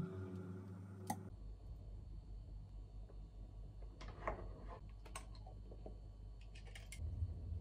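Quiet kitchen handling sounds over a low room hum. A knife clicks through a banana onto a wooden cutting board about a second in. Later a metal scoop taps and scrapes in a plastic yogurt tub, with a few small clicks.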